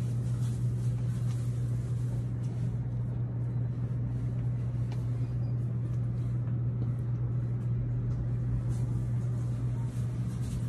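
Steady low hum with an even hiss over it: the machine room tone of a shop, such as refrigeration or ventilation.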